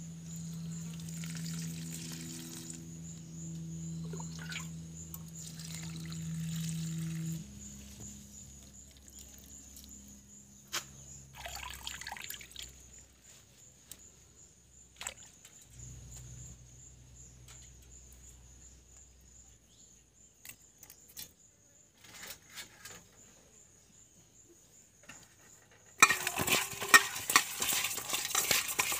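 Hands rubbing fish with wet turmeric paste in an aluminium bowl: loud squelching and scraping against the metal, starting near the end. Before that there is only light handling noise of the chopped taro leaves, a steady low hum that stops about seven seconds in, and a faint high steady trill.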